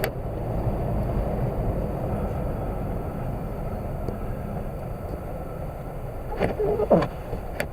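Steady low rumble of a car being driven, engine and tyres on the road. A brief voice-like sound comes near the end.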